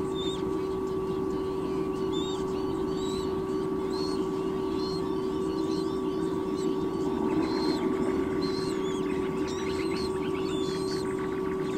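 Many short, high bird chirps over a steady hum, with a quicker run of chittering notes from about seven to eleven seconds in.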